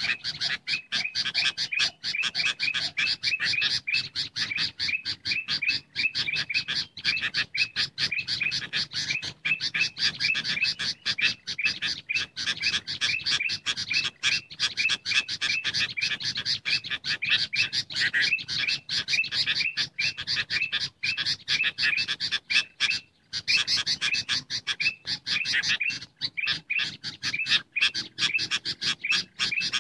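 Dense, unbroken chorus of bulbul calls, sooty-headed bulbuls mixed with ruby-throated bulbuls, in rapid, repeated high chirps: a bird-lure recording. The calling drops out briefly about three-quarters of the way through.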